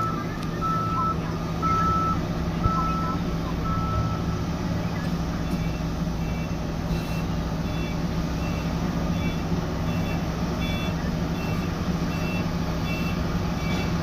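Sany SR 235 rig's diesel engine running steadily with its warning alarm beeping. For the first few seconds a beep sounds about once a second; from about halfway a shorter, higher beep repeats at a quicker pace.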